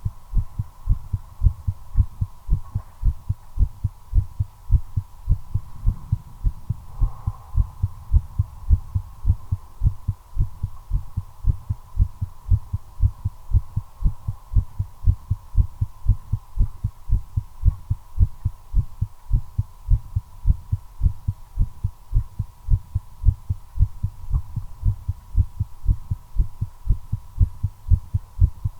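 A human heart beating in a steady, regular rhythm of low thumps, heard close up through a chest recording, with a faint steady hum underneath. The heartbeat is quickened by nicotine while a cigarette is being smoked.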